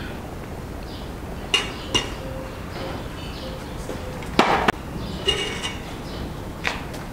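Metal spoon clinking against a metal cooking pot while filling is scooped out: a couple of sharp clinks, a louder clatter about four and a half seconds in, and one more clink near the end, with music in the background.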